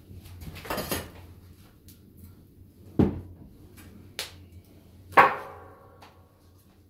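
Clatter of rubbish and scrap being gathered and tossed about: a scraping rustle, then a sharp knock about three seconds in and a louder ringing metallic clang about five seconds in that dies away over most of a second.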